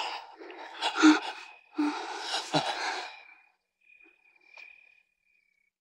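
Breathy sighs and gasps of a couple kissing, in several bursts over about three seconds, then they fade out.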